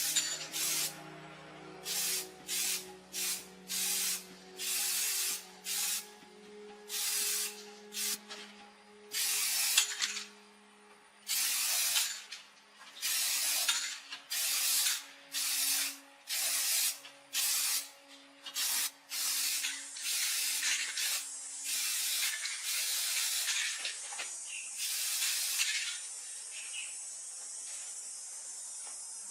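Repeated short bursts of hissing spray, about twenty in all, each lasting well under a second to about a second. From about the middle they come quicker and run longer. Near the end they give way to a steady faint hiss.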